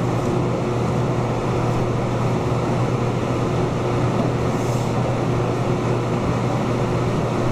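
Steady low mechanical hum with an even rushing noise, like room ventilation running, unchanging throughout.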